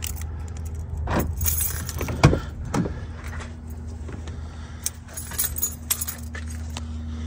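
Keys jangling with scattered clicks and knocks of handling, the sharpest knock about two seconds in, over a steady low hum.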